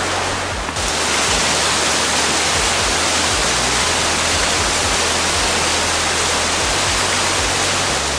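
Heavy rain pouring down, a steady loud rush that steps up about a second in.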